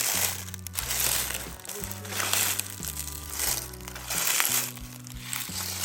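Background music: a low bass line stepping between notes about once a second, under rhythmic swells of high hiss.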